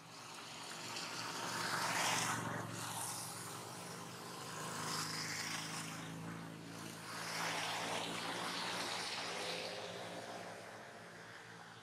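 Motor engine noise, a low hum under a rushing sound, that swells and fades twice. It is loudest about two seconds in, with a second swell about seven seconds in.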